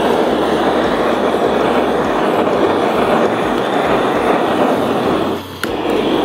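Butane kitchen torch burning with a steady rushing hiss as its blue flame sears the outside of a raw tuna block. The noise drops briefly about five seconds in, with a sharp click as it comes back.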